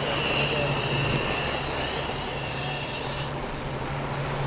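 Big conventional fishing reel free-spooling as a heavy sinker pulls line down toward deep water, a steady high whine from the spinning spool that stops abruptly about three seconds in. A low steady hum runs underneath.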